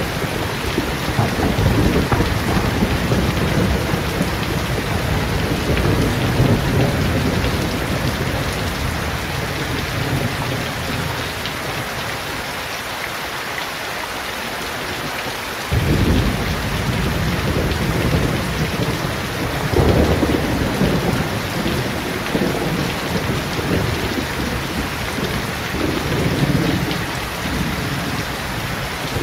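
Steady rain falling on shrub leaves and a waterlogged paved yard, with low rumbles that swell and fade several times, one starting suddenly about halfway through.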